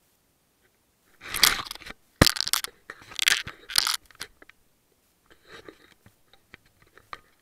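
Dry grass crunching and rustling against a camera as it is picked up by hand out of the grass, with a sharp knock a little over two seconds in, then quieter scratching handling noise.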